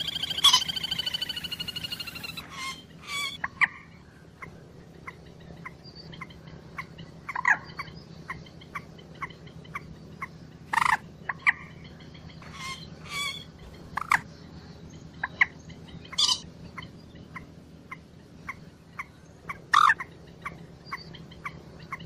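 Common moorhen calling: a rapid chattering call that falls in pitch over about two seconds, then a run of short sharp notes about two a second, with louder single calls scattered among them. The chattering call starts again at the very end.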